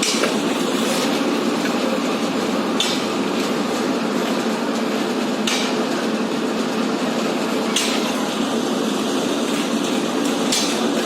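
Construction-site work: a steady engine drone with about five sharp, clinking strikes spaced two to three seconds apart.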